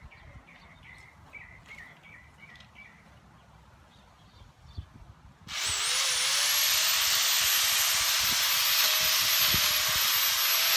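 A few faint bird chirps, then about halfway through an electric power tool switches on: its motor whine rises briefly as it spins up, then it runs steadily and loudly.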